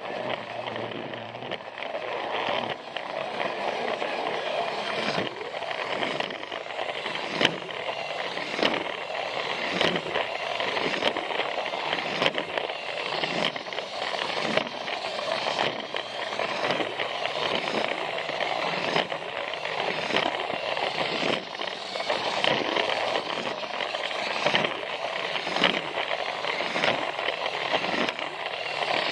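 Battery-powered Plarail toy train running on plastic track: the motor and gearbox whirr steadily while the plastic wheels click over the track joints in an even rhythm, about once a second.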